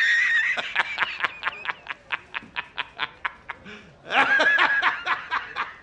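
High-pitched giggling laughter: a squealing, wavering start, then a rapid run of short giggles about four to five a second that fade away, and a second burst of giggling about four seconds in.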